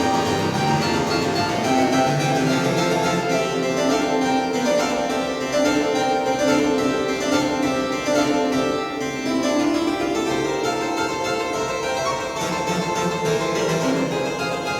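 Pipe organ playing, several notes sounding at once and held, the chords changing every second or so.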